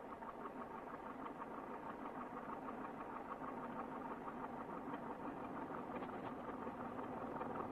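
An engine running steadily with a rapid, even beat.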